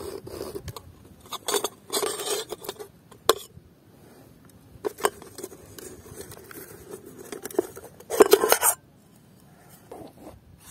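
A camping cook pot and its lid clinking and knocking as they are handled and pulled from a mesh drawstring bag, with rustling of the bag. There is a louder stretch of rustling and clatter about two seconds in, a sharp knock about three seconds in, and another louder clatter near eight seconds in.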